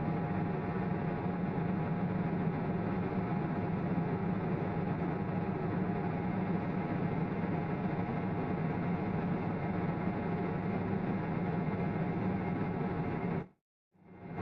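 A heavy farm tractor's diesel engine running at a steady drone with a low hum. The sound cuts out completely for about half a second near the end, then comes back.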